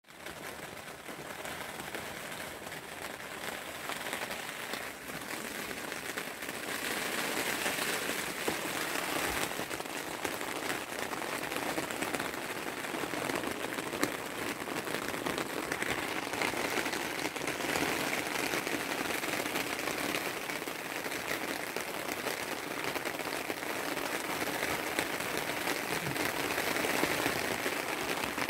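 Heavy rain falling on a tent roof and awning, a dense hiss of drops that gets louder about seven seconds in.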